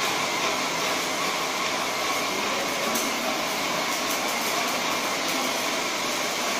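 Graco airless sprayer running steadily as white coating is sprayed onto a wall: a constant spray hiss over the machine's mechanical running.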